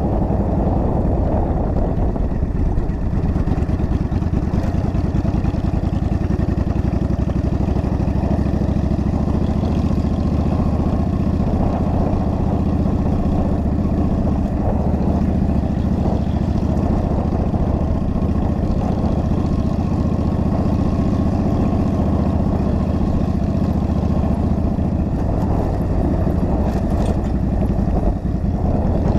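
An engine running steadily at an even speed, with a constant low hum and no breaks or changes in pitch.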